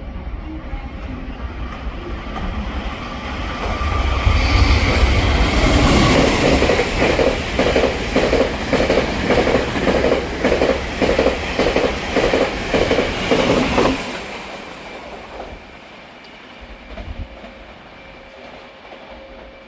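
Taiwan Railway PP Tze-Chiang express with E1000 electric locomotives passing through at speed: a rising rumble, then its wheels knocking over a rail joint's fishplate in a fast clickety-clack, about two knocks a second, which stops abruptly as the train clears, leaving a fading rumble.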